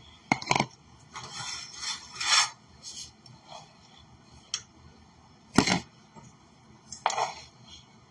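Kitchenware being handled: a utensil scraping and knocking against a pan and container as cooked chickpeas and nuts are moved into it, with a few sharp clacks and short scrapes.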